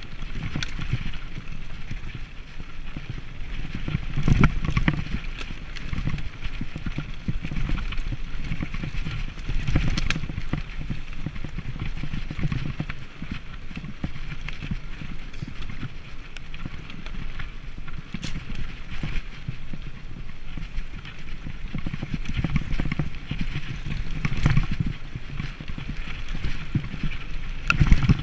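Mountain bike riding fast down a dirt forest trail: tyres rumbling over the ground and the bike rattling and clattering over bumps, with irregular clicks and knocks throughout.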